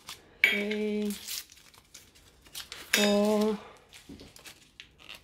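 Foil packets of denture cleaning tablets crinkling and tearing as they are pulled open, with scattered small crackles. A woman's voice is heard briefly twice, and these voice sounds are louder than the crinkling.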